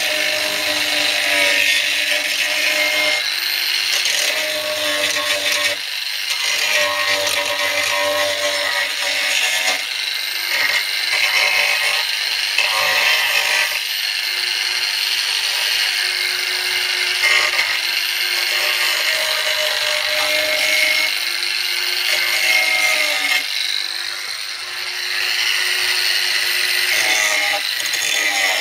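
A handheld electric power tool sanding a boat's rudder: a steady motor whine that dips and recovers every few seconds as it is pressed on and eased off, under a harsh scraping rasp.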